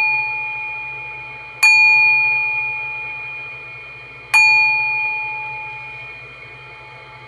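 Brass singing bowl struck and left to ring, with a lower and a brighter higher tone that die away slowly. It is struck again about one and a half seconds in and once more a little past four seconds in. It is rung to clear the energies before a tarot reading.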